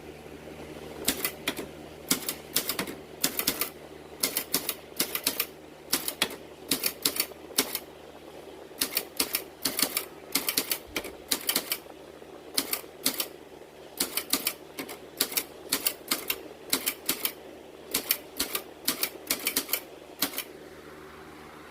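Olympia Traveller de Luxe portable manual typewriter being typed on: keys strike in quick, irregular runs of clicks with short pauses between them, over a steady low hum. The typing begins about a second in and stops shortly before the end.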